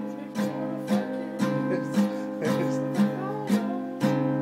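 Guitar strummed in a steady rhythm, about two strums a second, with each chord ringing on between strokes.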